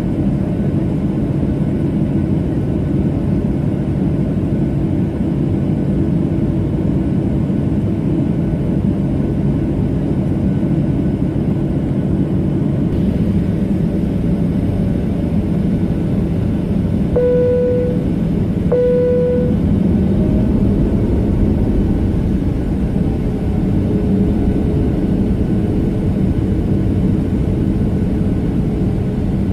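Inside the cabin of an Airbus A320 taxiing: a steady low rumble of the jet engines and the cabin. Around the middle, two short chimes on the same pitch sound about a second and a half apart, typical of the airliner's cabin chime.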